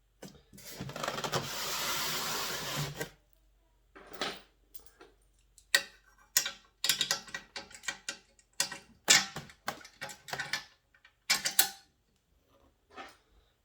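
Metal clicks and clinks of bolts, nuts and washers being fitted by hand while a leg is bolted onto the frame of a YardBird chicken plucker. Near the start comes a steady rasping run of about two and a half seconds, then scattered sharp clicks.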